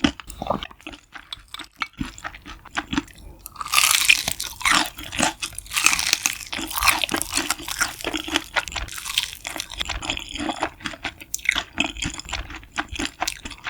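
Close-miked crunching and chewing of crispy food: rapid crackling bites, loudest and densest in the middle stretch.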